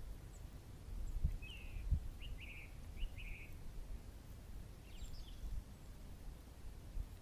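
A small bird gives several groups of short chirps between about one and a half and three and a half seconds in, and a fainter few near five seconds. Under them runs a low rumbling noise on the microphone, with a couple of soft thumps.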